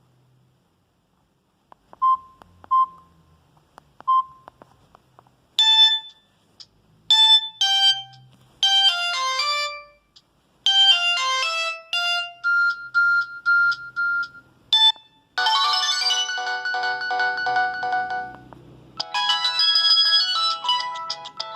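A Samsung GT-E2121L mobile phone playing its built-in ringtones through its loudspeaker. A few short beeps come first, then electronic ringtone melodies play one after another, with a new tune starting about every four to five seconds. The last two tunes are fuller, with many notes at once.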